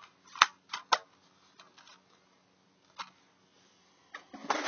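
Plastic DVD cases being handled: three sharp clicks within the first second, a single click about 3 s in, then a short burst of clattering and rubbing near the end.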